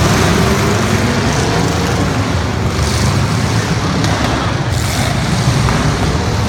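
Loud, steady running of big show-truck engines.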